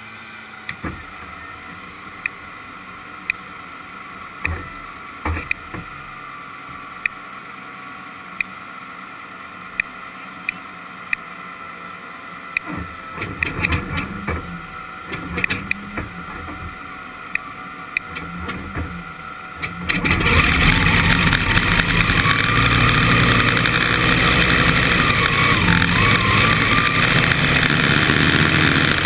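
Vintage Oh Boy! Oberto unlimited hydroplane's engine being started, heard from onboard: a steady hum with a sharp click about once a second, then about two-thirds of the way in the engine comes up suddenly and runs loud and steady as the boat gets underway, with water rushing past the hull.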